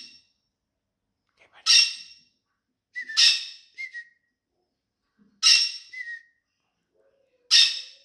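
Small pet parrots, a green-cheeked conure and a canary-winged parakeet, giving loud, sharp, screechy calls about every two seconds, two of them followed by a short chirp.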